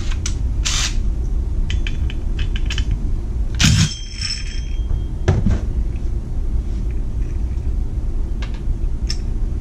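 A short burst from a cordless impact driver about four seconds in, with a brief motor whine after it, as it breaks loose a chainsaw's left-hand-thread clutch. Light metal clicks and clinks of small parts come before and after it.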